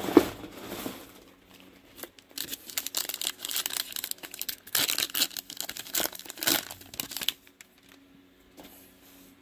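Foil trading-card pack wrapper crinkling and tearing as it is ripped open, a dense run of rustling between about two and seven seconds in.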